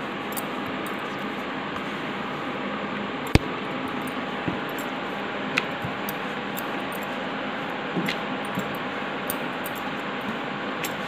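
Wheat-flour dough being rolled out into a chapati on a round rolling board: scattered light taps and clicks of the rolling pin and hands on the board over a steady hiss, with one sharp knock about three seconds in.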